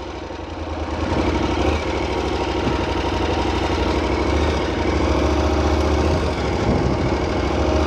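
KTM 1290 Super Adventure's 1301 cc V-twin engine running at low revs, getting louder about a second in as the bike moves off on a dirt road.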